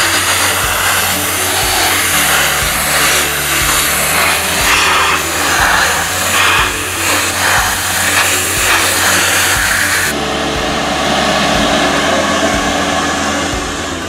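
Handheld vacuum-recovery abrasive blaster hissing loudly as it is pressed against rusty car sheet metal, stripping it to bare metal. The hiss thins out sharply about ten seconds in, leaving a lower rushing sound. Background music plays underneath.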